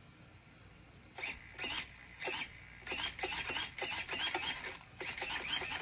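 Steering servo of a Kyosho Mad Van VE RC monster truck whining in short bursts as the front wheels are steered from side to side. The bursts begin about a second in and come roughly twice a second.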